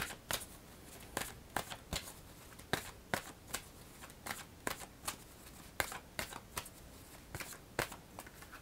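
A deck of oracle cards being shuffled by hand: a run of light, irregular card snaps and slaps, about two or three a second.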